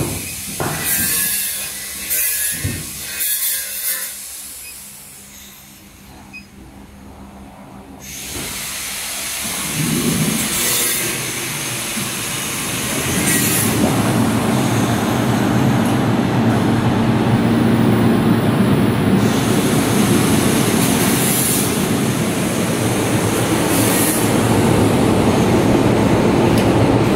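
Air-cooled chiller running up: a steady mechanical running noise from its compressor and condenser fans builds about a third of the way in and grows louder, then holds. A few short clicks from the control panel's keys come first.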